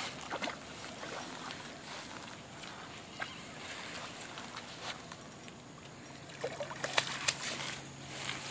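Largemouth bass splashing at the water's surface as it is reeled in on a spinning rod. Near the end come a few sharp clicks and rustles as the fish is swung out of the water onto the grass.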